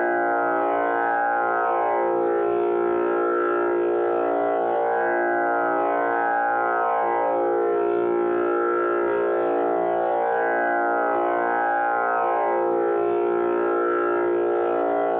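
Tanpura drone tuned to A#: sustained, continuous string tones with a buzzing overtone sound, the strings plucked in turn in a slowly repeating cycle.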